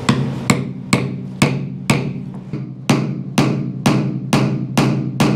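Claw hammer striking a pin punch to drive a joining pin out of a two-piece aluminium labyrinth seal. About a dozen even blows, roughly two a second, each with a short metallic ring.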